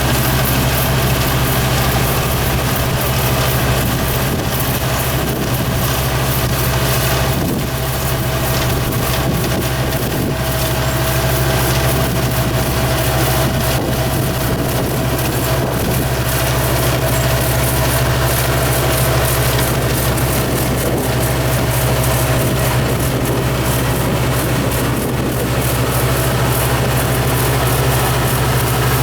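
Engine of a Yanmar rice-paddy machine running steadily at working speed as it makes a lap of the field, a deep hum with a steady whine over it.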